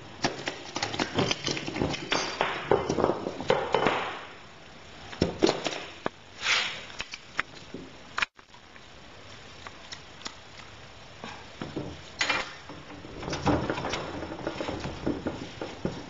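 Hand work on copper tubing: a tube cutter clicking and scraping as it is turned around the copper pipe, then irregular metal knocks and rubs as the cut pipe end and a copper elbow fitting are handled and pushed together.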